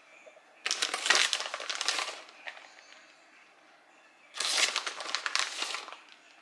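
Plastic bag of shredded mozzarella crinkling as cheese is shaken and pulled out of it, in two bursts of about a second and a half each.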